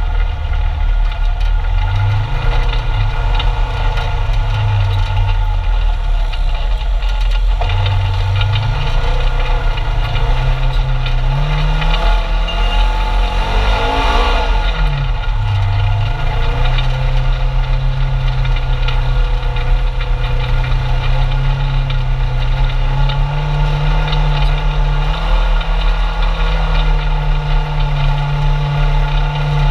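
Polaris RZR 900 side-by-side's twin-cylinder engine running as it drives along a trail, heard from inside the open cab, its pitch rising and falling with the throttle. About halfway through it revs up sharply and then drops back.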